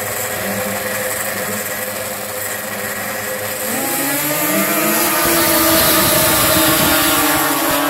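Several two-stroke racing snowmobile engines idling, then revving up together about four seconds in, the pitch rising and the sound growing louder.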